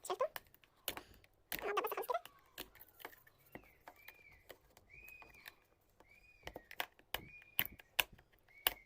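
Small sharp clicks and taps of a hand tool working on an LED bulb's circuit board as the old, burnt-out LED is scraped off, with a short scraping burst about a second and a half in. From about three and a half seconds a bird chirps in the background, roughly once a second.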